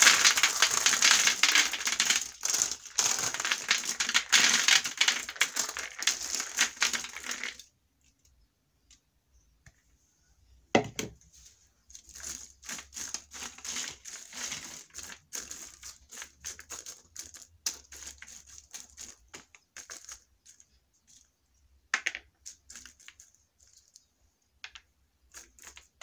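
Raw groundnuts poured from a bowl onto a foil-lined baking tray, a dense rattling crackle for about the first eight seconds. After a pause and a single knock, the nuts are spread out by hand over the crinkled aluminium foil in scattered rustles and clicks, laid out for oven roasting.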